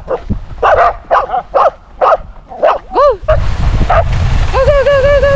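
A dog vocalizing excitedly: a run of short yips and whines, one whine that rises and falls about three seconds in, then a long wavering whine near the end, over a low rumbling noise.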